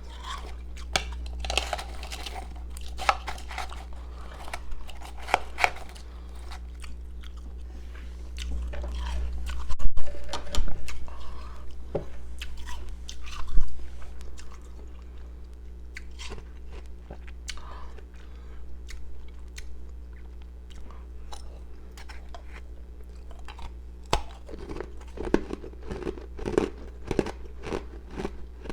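Close-up crunching and chewing of powdery, carbonated ice pieces, an irregular run of sharp crackles and bites. The loudest crunches come about a third of the way through and again a little before the middle.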